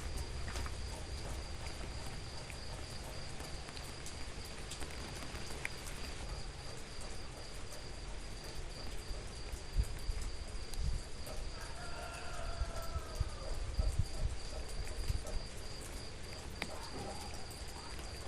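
Steady rain hiss with a constant high-pitched insect trill over it. There are some low thuds in the middle and a brief distant animal or voice call about twelve seconds in.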